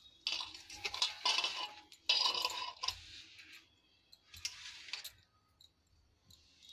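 Small steel bowl clinking and scraping against a stainless-steel mixing bowl as powdered sugar is tipped and tapped out onto mawa, in three short bouts with a metallic ring.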